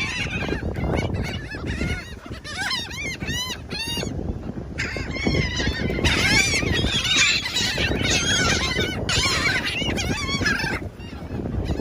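Gulls calling: many short, arching, harsh cries in quick series, thick for most of it and thinning near the end, over a steady low rush.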